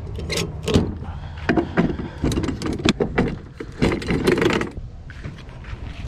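Footsteps and handling noise: irregular clicks, knocks and rustles over a low wind rumble on the microphone, quieter for a moment near the end.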